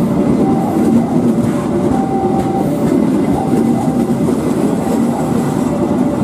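Passenger train coaches rolling past close by, a loud, steady rumble and rattle of wheels on the rails. Brief faint tones come and go over it.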